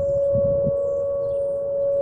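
Outdoor tornado warning siren during a test, sounding one long steady tone.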